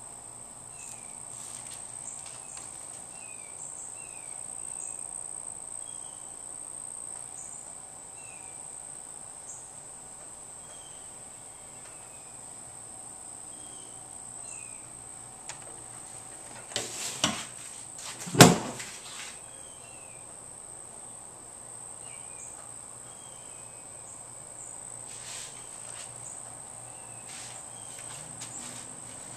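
A steady high-pitched trill runs throughout, with faint short chirps every second or so. Two sharp knocks come a little past halfway, the second louder.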